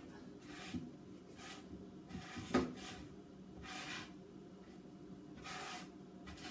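Quiet handling sounds as kitchen items are rearranged: several short rustles or scrapes and a light knock about two and a half seconds in.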